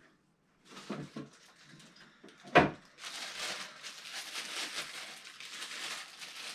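A few light clicks and one sharp knock about two and a half seconds in, then a plastic bag crinkling continuously as a new cordless router is unwrapped from it.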